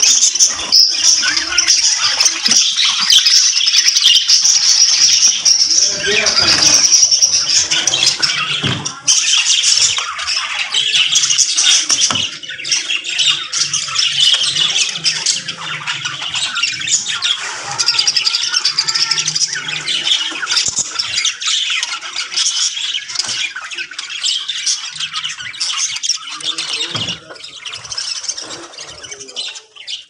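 A colony of budgerigars chattering continuously, many birds calling at once in a dense, high-pitched mass of calls.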